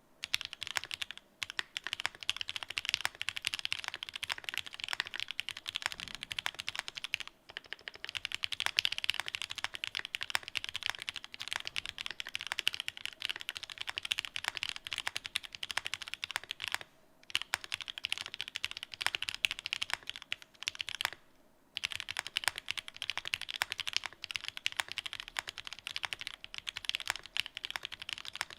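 Continuous fast typing on a Mode Eighty mechanical keyboard fitted with Gateron Mochi linear switches and Cherry-profile keycaps, a dense run of key clacks broken by a few short pauses.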